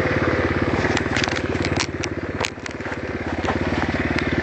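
Bashan 150 quad's single-cylinder engine running steadily at low speed while riding. A scatter of sharp clicks and crackles runs through the middle, the loudest about two and a half seconds in.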